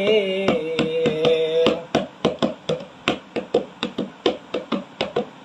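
Hand-tapped percussion keeping a quick steady beat of about five strokes a second under a Bengali folk song. A man's held sung note dies away in the first second and a half, leaving only the taps, which stop at the end.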